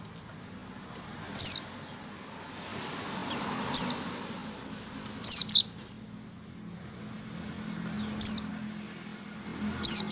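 A caged white-eye (pleci) gives short, sharp, high calls that fall in pitch, about seven of them, some single and some in quick pairs. These are the 'ngecal' calls a pleci gives before breaking into full song. A faint low hum runs underneath.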